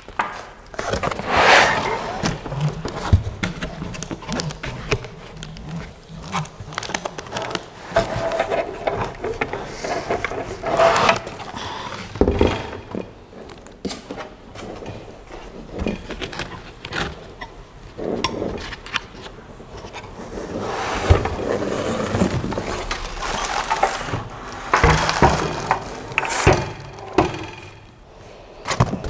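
Unpacking a tightly packed cardboard box: cardboard and foam packing scraping and rustling as the 3D printer parts are worked loose, with occasional knocks as a heavy part comes out or is set down.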